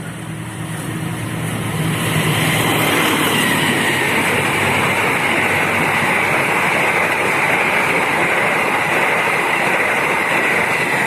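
Train passing close by: a loud steady rush of wheels on rail builds over the first two seconds, holds with a high hiss on top, and eases off at the end.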